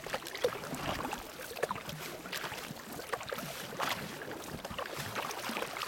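Double-bladed kayak paddle dipping into the water in uneven strokes, splashing and dripping, with water lapping at the kayak.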